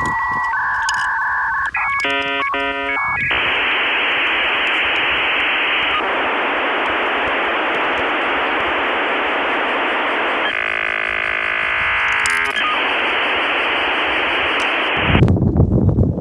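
Dial-up modem handshake: a series of beeping tones and chirps, then a long rush of hiss broken by a stretch of warbling tones. It ends about fifteen seconds in, and a louder, low-pitched sound follows.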